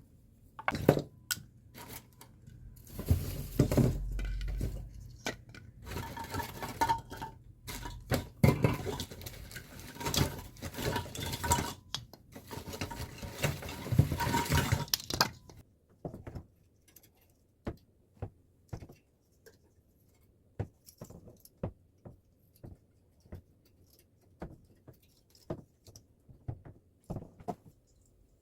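Hard objects being handled, clattering and clinking continuously for about fifteen seconds, then only scattered single taps and clicks.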